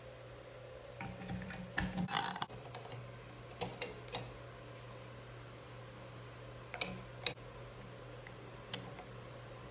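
Plastic and metal shower valve trim parts being handled and pressed onto a Moen shower cartridge stem: a cluster of rustling and clicks about a second in, then single sharp clicks every second or two. A steady low hum runs underneath.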